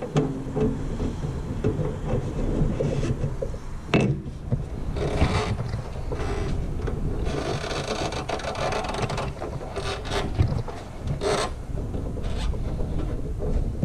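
Scraping and rubbing of hand tools and parts being worked on a motorcycle fuel tank, in several short stretches, with a sharp knock about four seconds in.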